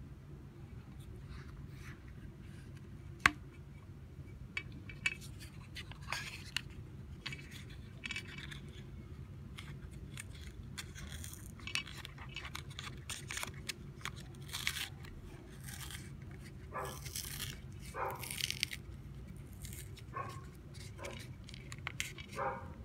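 Foil-and-paper wrapper of a chocolate ice cream cone being crinkled and peeled open by hand, in irregular crackles with one sharp click about three seconds in, over a low steady hum.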